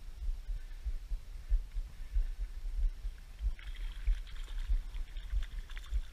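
A hooked fish splashing and thrashing at the surface, starting about three and a half seconds in, with irregular low thumps on the microphone throughout.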